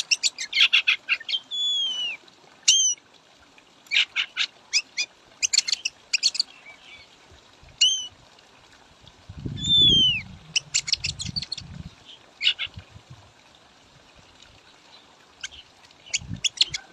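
Oriental magpie-robin calling in bursts of rapid, harsh chattering chips, with several clear down-slurred whistles between them. A low, muffled noise sounds briefly about ten seconds in.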